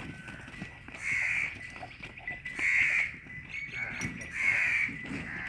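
A bird calling outdoors, three short calls about a second and a half apart.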